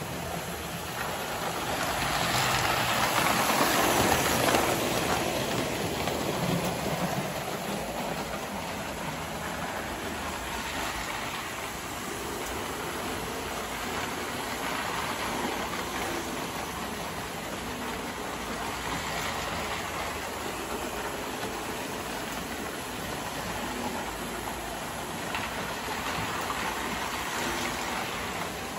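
Model ALCO diesel locomotives and cars running on three-rail tinplate track: a steady whirring rumble of electric motors and rolling wheels, louder a few seconds in.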